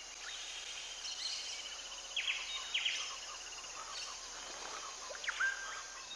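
Natural outdoor ambience of birds and insects: a steady background hiss with a fast, buzzy trill in the first half and a few sharp, quick bird calls about two seconds in, just after three seconds, and again past five seconds.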